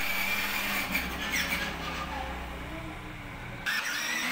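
Battery-powered children's ride-on toy motorcycle moving across a tiled floor. Its electric motor gives a low steady hum that stops about three and a half seconds in, with a few short high squeaks over it.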